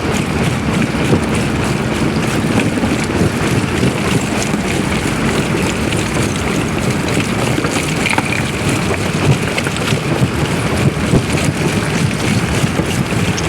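Heavy machinery's engine running steadily, a dense low rumble with wind buffeting the microphone.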